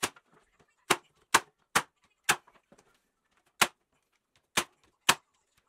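About eight sharp, separate knocks at an uneven pace with a pause in the middle, typical of hammer blows on pallet wood.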